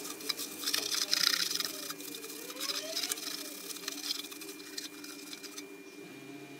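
Paper towel rubbing and wiping inside a plastic resin-printer vat, irregular scratchy strokes that are busiest in the first two seconds and then thin out.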